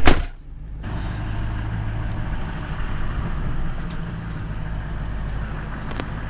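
Ford F-250 pickup's engine running steadily just after a cold start, heard from inside the cab. A single sharp thump comes right at the start.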